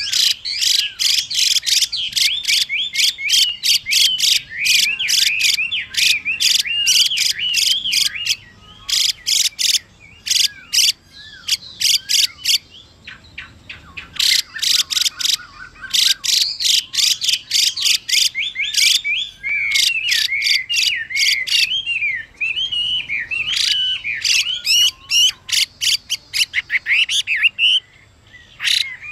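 Chinese hwamei calling and singing: rapid runs of harsh, buzzy notes, the female's 'xùy' call, mixed with the male's whistled, slurred song phrases. They come in bursts with a few short breaks.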